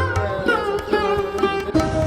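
Background music: plucked-string melody with sliding notes over a steady low bass, in a sitar-like style.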